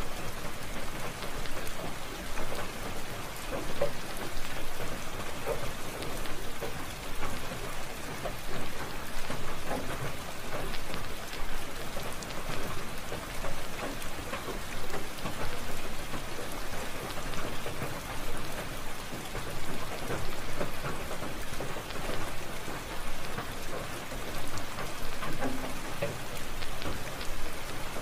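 Steady rain with rumbles of thunder, swelling and easing in loudness every few seconds.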